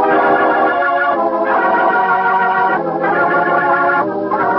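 Radio-drama organ bridge: a string of held organ chords, changing every second or so, marking the change of scene.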